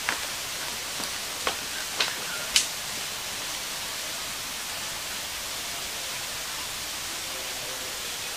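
Bamboo footbridge slats clacking and creaking under footsteps, five sharp clicks in the first three seconds, then a steady hiss.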